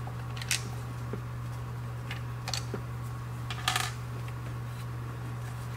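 A few light clicks and clinks of small screws and a plastic cover piece being lifted off a car's folding wing-mirror motor assembly. The loudest cluster comes about two thirds of the way in, over a steady low hum.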